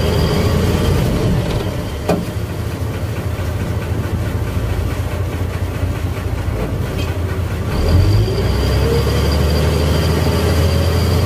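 A tuna purse seiner's diesel engine running with a steady low rumble. About eight seconds in it revs up, rising in pitch and getting louder.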